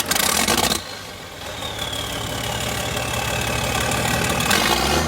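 A tractor engine running steadily. It drops in level briefly about a second in, then builds up gradually, with a faint falling whine.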